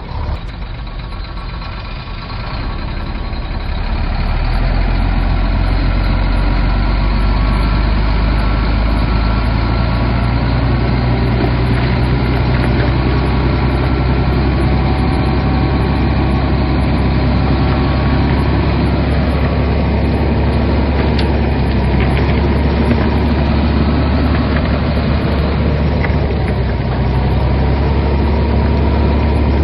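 Heavy earthmoving machine's diesel engine running, getting louder about three to four seconds in and then holding a steady low drone.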